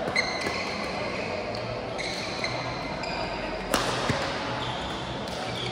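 Badminton rally on an indoor court: shoes squeak on the floor several times, and a sharp racket strike on the shuttlecock lands a little under four seconds in.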